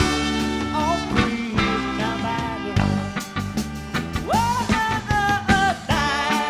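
Live band music from a soul band: a full band with a regular beat and bass under a lead melody line that slides into and holds its notes.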